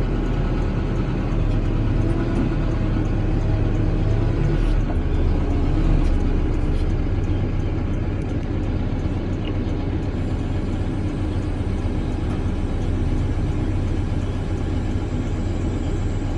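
Cat 420 backhoe's diesel engine running steadily under load while it drags a 12-inch wood chipper on a chain.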